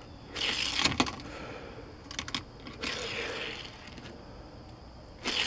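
Light clicks and a few short swishing rustles from a die-cast toy car and its plastic track being handled, several separate clicks spread through the stretch.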